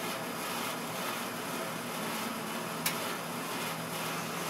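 Steady low hum and hiss of room background noise, with one sharp tick about three seconds in.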